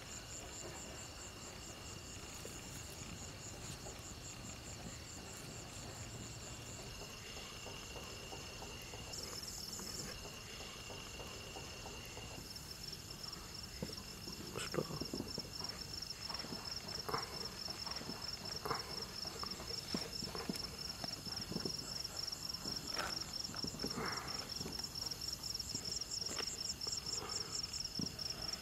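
Crickets chirping steadily, several insects at different high pitches. From about halfway, a scatter of light knocks and rustles, food being served and handled.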